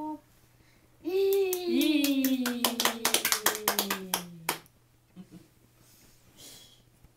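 Hands clapping, quicker and quicker, under a long wordless vocal note that slides steadily down in pitch. Both stop together about four and a half seconds in.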